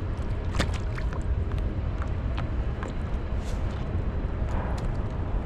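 Wind buffeting the microphone as a steady low rumble, with scattered small clicks and taps over it.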